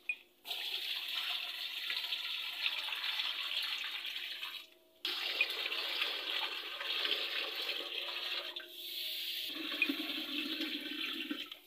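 A stream of water pouring from above into a glass aquarium, splashing as the tank fills. It is heard in three stretches with short breaks between them, and the last stretch sounds fuller and lower.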